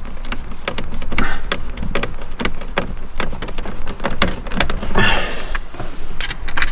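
Quick, irregular clicks and light rattles of plastic parts and a small screwdriver being handled while a steering-column clock spring is fitted, with a brief scraping rustle about a second in and again about five seconds in.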